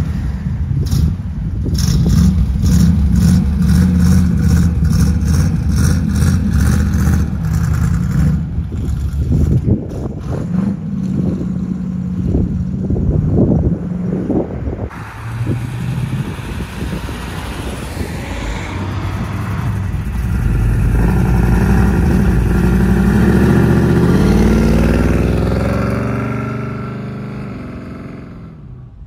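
Car engines running, with wind noise on the microphone. The sound changes abruptly about halfway through, and in the last few seconds an engine's pitch rises while it grows fainter.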